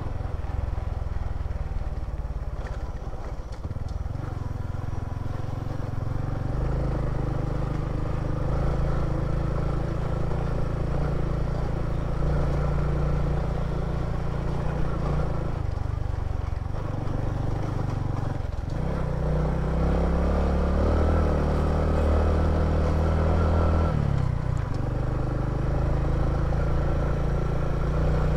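A three-wheeled motorcycle's engine running as it is ridden along, its note shifting in steps every few seconds as the throttle changes.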